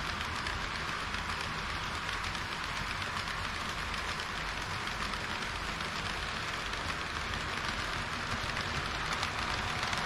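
HO-scale model trains running on sectional track: a steady rolling noise of a long train of tank wagons' metal wheels on the rails, getting a little louder near the end as a model railcar passes close by.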